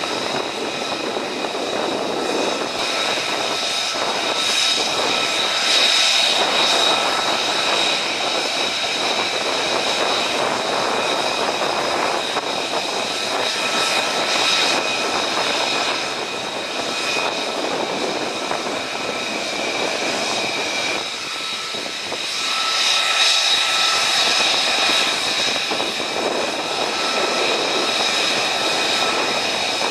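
Jet engines of a formation of F-35 fighters and transport aircraft taxiing: a continuous rushing rumble with a steady, high-pitched multi-tone turbine whine on top, swelling twice, about five seconds in and again a little past twenty seconds.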